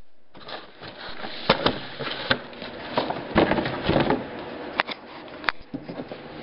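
A cardboard box being pulled out of a larger shipping box and set down: cardboard scraping and rustling, with several sharp knocks.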